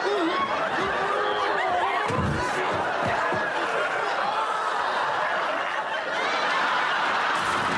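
Studio audience laughing loudly and steadily throughout, with a couple of dull thumps about two to three seconds in.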